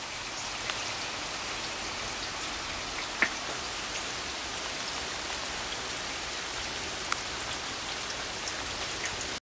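Sleet, wet snow mixed with rain, falling steadily on leaves and pavement: a constant hiss with a few sharp ticks, the loudest about three seconds in. It cuts off suddenly near the end.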